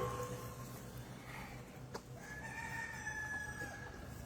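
A rooster crows once, a single long held call lasting about two seconds, starting about two seconds in. At the start, a metallic clang rings out and fades.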